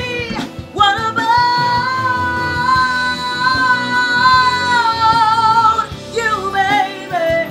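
A woman singing over instrumental backing, holding one long note with vibrato from about a second in until nearly six seconds, then a few shorter sung phrases.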